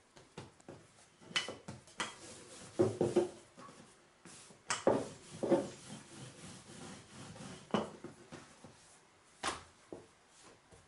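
Dough being pressed flat by hand, then rolled out with a wooden rolling pin on a starch-dusted counter: rubbing strokes with scattered knocks of the pin on the counter.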